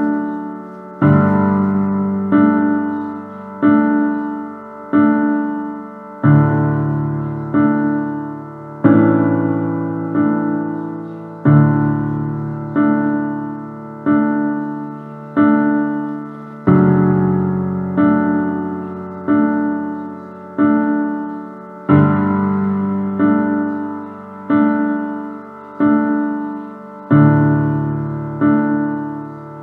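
Background piano music: a slow, steady pattern of single notes, each fading away, with the chord changing every few seconds.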